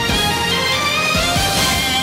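Opening theme music of a TV news bulletin: a pitched melody over a few drum hits.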